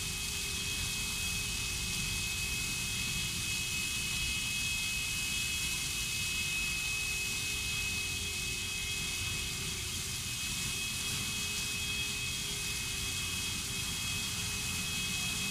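Water jetting high from an open fire hydrant: a steady rushing hiss of spray, with a low rumble beneath and a faint steady high whine over it.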